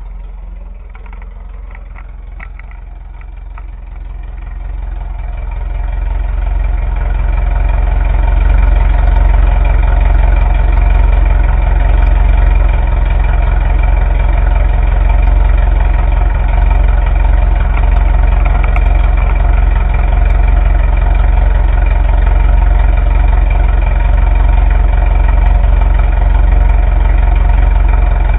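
Untested 1600 engine in a dune buggy running steadily on its first test fire without a fuel pump, getting louder over the first several seconds and then holding an even idle.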